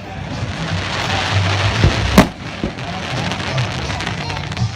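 Fireworks going off: a steady crackling hiss of burning stars, with one sharp bang a little over two seconds in and a smaller pop just after.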